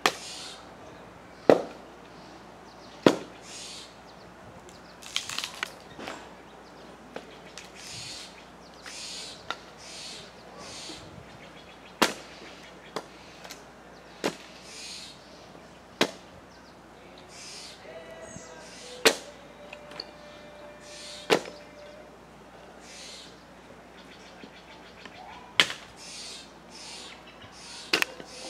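Steller's jays calling over and over in short, high notes, about one every second. Sharp axe blows chopping firewood cut in every one to several seconds, about a dozen in all, and are the loudest sounds.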